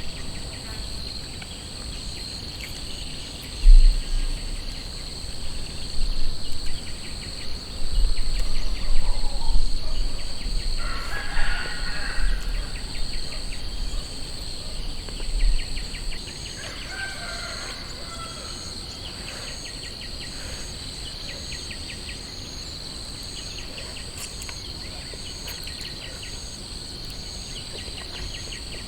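Outdoor nature ambience: a steady high insect drone with rapid pulsing trills, a few bird calls near the middle, and low rumbling bumps on the microphone in the first half.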